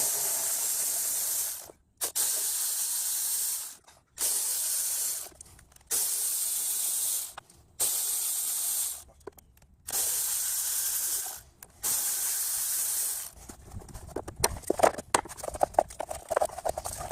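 Compressed-air hiss from a pneumatic tool in about seven bursts of roughly two seconds each, then a run of sharp metallic clicks and rattles near the end.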